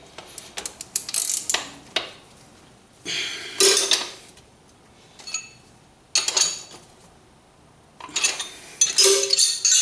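Steel wrench and socket clinking and scraping against the 17 mm and 14 mm bolts and nuts of the ATV's rear axle adjuster as they are tightened, in several irregular bursts with quieter gaps between them.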